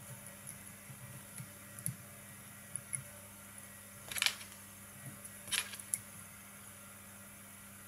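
Quiet handling sounds of tying a fly at a vise: light ticks and taps of fingers and thread on the hook, with two short, sharp rasps about four and five and a half seconds in, over a faint steady hum.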